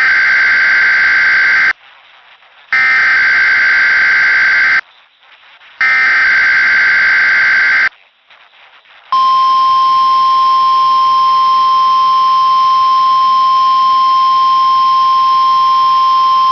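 Weatheradio Canada alert signal for a required monthly test. First come three bursts of the SAME digital header's warbling data tones, each about two seconds long and about a second apart. About nine seconds in, the steady single-pitch warning tone starts and holds without a break.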